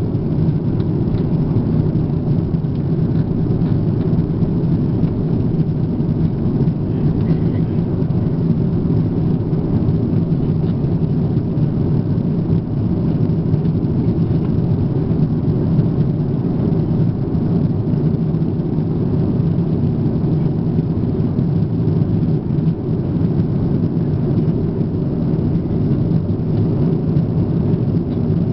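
Steady cabin noise inside an Airbus A340-300 airliner in flight, heard from a window seat beside the wing: an even, low drone of the engines and rushing air that holds without change.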